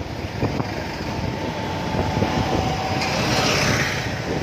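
Riding a motor scooter through town traffic: a steady mix of engine and road noise, with wind rumbling on the microphone.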